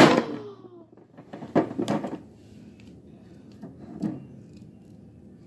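Plastic wrestling action figures knocked and clattered against the toy ring by hand: a sharp knock at the start, a few knocks about a second and a half in, and a fainter one near the four-second mark.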